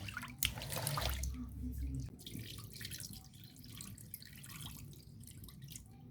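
Rice being washed by hand in a basin of water, with sloshing and splashing that is busiest in the first two seconds and then thins to fainter drips and small splashes.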